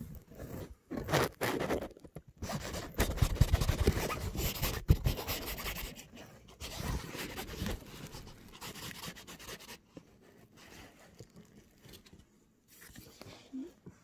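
Irregular rubbing and rustling right at the microphone as a cat's fur and the fabric of a cat tunnel brush against it, loudest a few seconds in and fainter towards the end.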